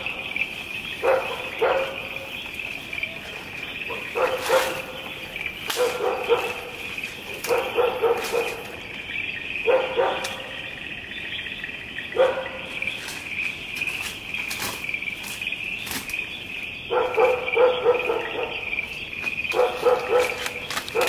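A dog barking in repeated short bouts of two or three barks, pausing for a few seconds past the middle, over a steady high-pitched drone.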